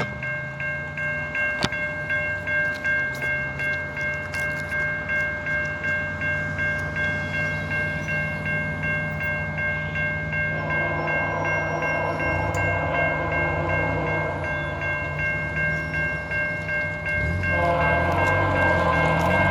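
Level-crossing warning bell ringing in steady strokes about three times a second, over the low drone of approaching VIA Rail F40 diesel locomotives. The locomotive horn sounds from about halfway and gets louder near the end as the train nears the crossing.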